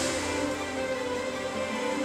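Background music with held notes over a steady hiss.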